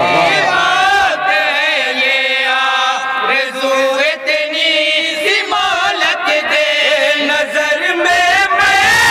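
A chorus of men singing an Urdu naat (a devotional poem praising the Prophet) in unison, drawing out long held notes that waver and bend in a slow melodic line.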